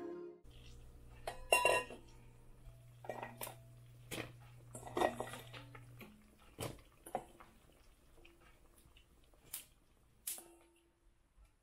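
Kitchen clatter of cookware and utensils: scattered clinks and knocks, a few of them louder, over a low steady hum that stops about halfway through.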